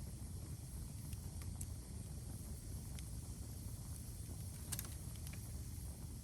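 Outdoor ambience: a steady low rumble with a few scattered sharp ticks and cracks, a small cluster of them about three-quarters of the way through.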